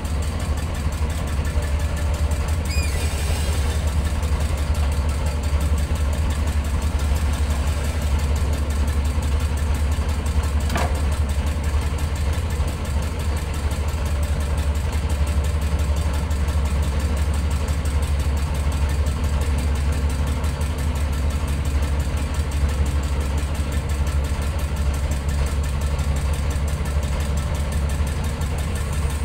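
Boat engine idling steadily, a low, even drone. A single faint click sounds about eleven seconds in.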